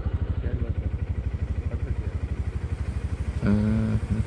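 Motorcycle engine idling with an even, rapid putter of about ten beats a second; a short pitched sound comes in about three and a half seconds in.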